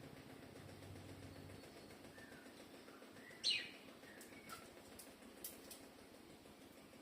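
Lovebird giving one sharp, high chirp that drops in pitch, about halfway through, followed by a few fainter chirps and light clicks.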